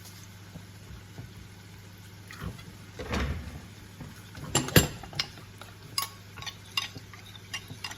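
Water poured briefly into a bowl of corn flour about three seconds in, then a spoon clinking against the bowl several times, sharpest near the middle, while the cornflour slurry is stirred.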